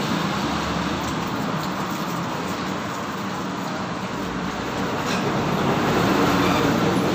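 Road traffic passing on the street, with a truck going by as a low rumble that swells late on.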